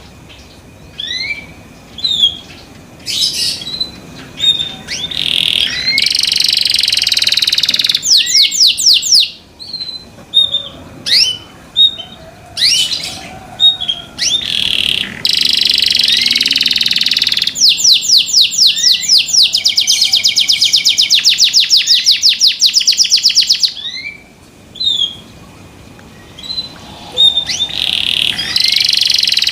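Domestic canary singing loudly: bursts of rapid trills and sharp rising chirps broken by short pauses, with a long run of fast trills past the middle.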